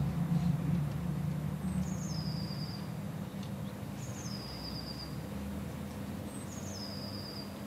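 A small bird repeating the same call about every two and a half seconds: a quick high note dropping into a longer, thin whistle. Under it runs a steady low hum.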